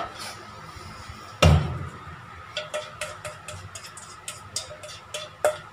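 Kitchenware knocking once loudly on the counter, then a run of light taps and clinks, two or three a second, as cake batter is scraped and tapped out of a small bowl into a cake pan.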